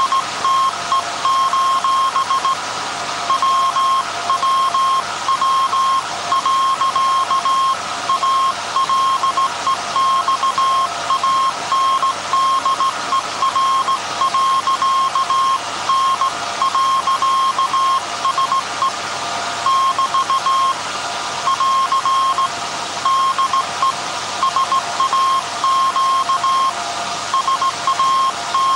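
Hand-keyed Morse code heard as a tone of about 1 kHz, switching on and off in dots and dashes: the SAQ message being sent on the 1924 Alexanderson alternator transmitter. Under it runs a steady machine noise.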